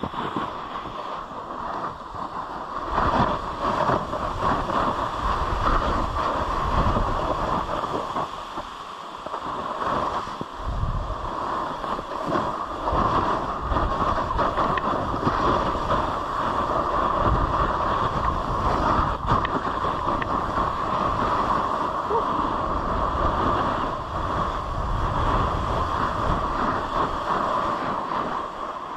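A snowboard sliding and carving down a slope, its base and edges hissing and scraping over choppy snow. Wind buffets the microphone as the rider moves, and the rumble rises and falls with each turn.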